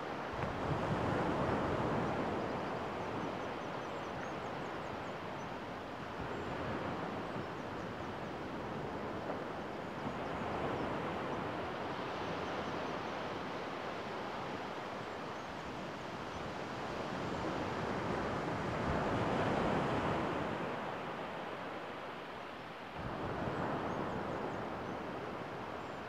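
Surf washing onto a sandy beach, the noise swelling and fading every several seconds, with wind on the microphone.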